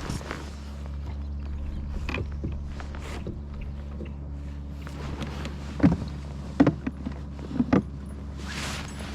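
Steady low mechanical hum of a fishing kayak's drive unit under way, with a few sharp knocks or clicks in the second half.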